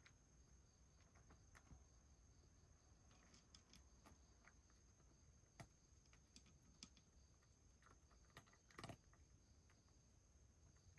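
Near silence with faint, scattered clicks and licking sounds of a cat eating from a wooden dish, a few sharper taps in the second half. A faint steady high-pitched tone runs underneath.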